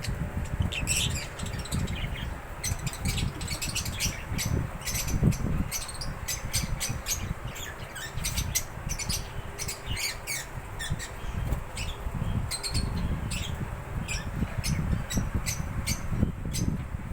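Cockatiels chirping in many short, high calls, one after another, over a steady low rumble.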